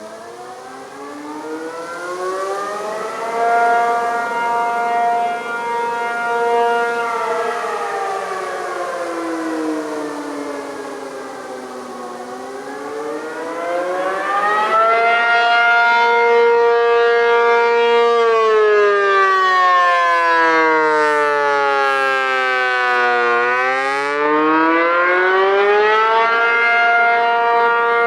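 ACA P-50 outdoor warning siren sounding its attack signal: it winds up from a low pitch, then wails in slow rises and falls, holding each high pitch for a few seconds before sliding down again.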